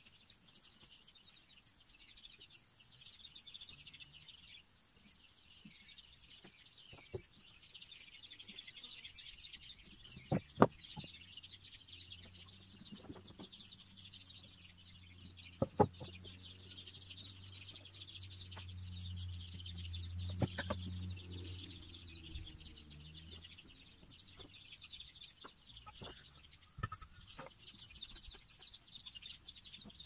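Knife work on a thin wooden stick, with about four sharp knocks of wood on the wooden plank. A steady high-pitched insect drone runs underneath, and a low hum swells up and fades away in the middle.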